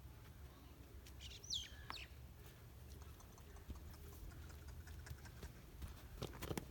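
Faint background with a steady low hum, a single short bird chirp about a second and a half in, and a few light clicks.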